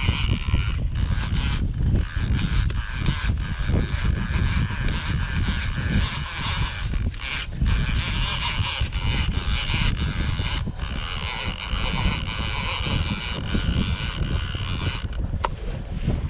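Large lever-drag conventional fishing reel buzzing under the load of a hooked white sturgeon: a steady high buzz from the reel's drag and gears that cuts out briefly several times. Heavy wind rumble on the microphone lies underneath.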